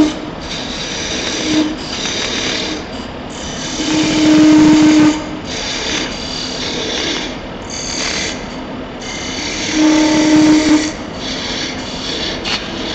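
Wood lathe spinning a cherry goblet while a narrow turning tool cuts down the stub at its base, a steady scraping cut throwing shavings. The cut gets louder, with a steady low tone, about four seconds in and again about ten seconds in.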